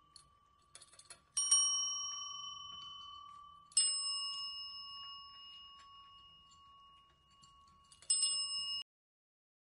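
Chrome desk bells (service call bells) tapped by a cat's paw, ringing three times. Each ring is a clear bright ding that slowly fades, and the last is cut off short.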